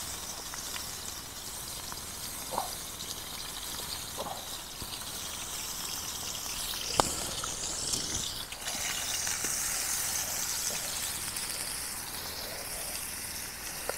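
Campfire with a steak cooking over it: a steady hiss with a few sharp crackles, one louder pop about seven seconds in.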